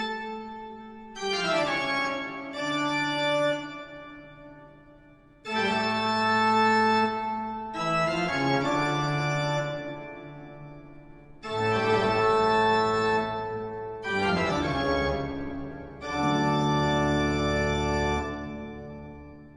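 Background organ music: held chords that swell and fade, with a sweeping run leading into each new chord.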